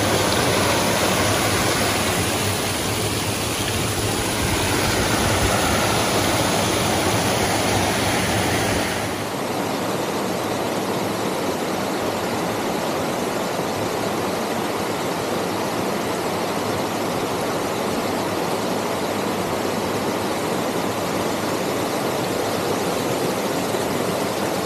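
Steady rush of a mountain waterfall stream. About nine seconds in there is a cut to a slightly quieter, thinner rush of water.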